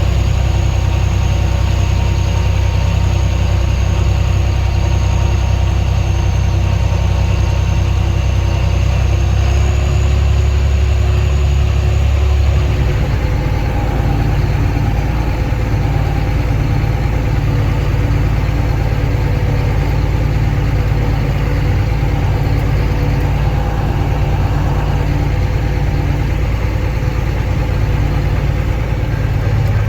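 Large diesel engine of farm machinery running steadily, its note shifting to a different pitch about thirteen seconds in.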